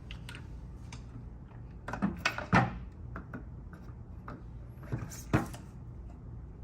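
Knocks and clatter of shower commode chair parts being handled and fitted together during assembly, in two short clusters about two seconds and five seconds in, over a low steady hum.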